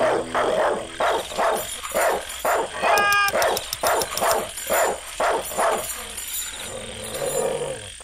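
A dog barking over and over, about two to three barks a second, with one higher, drawn-out yelp about three seconds in. The barking stops about six seconds in.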